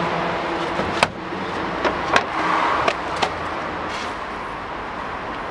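Rummaging in a plastic wheelie bin with its lid lifted open: a handful of short sharp knocks and clicks over a steady traffic-like background hum.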